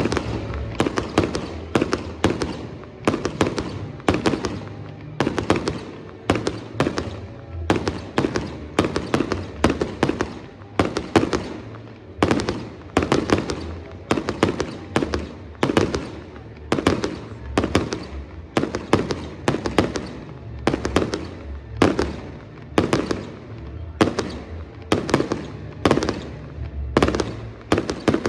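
Fireworks display: a rapid, fairly regular barrage of aerial shell bursts, about two sharp bangs a second, keeping up without a break.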